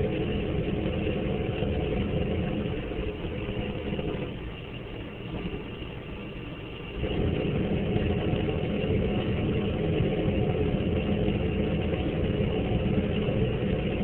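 Propane jet-style space heater running with a steady, dense noise and a low hum. It sinks quieter for about three seconds from around four seconds in, then jumps back to full strength.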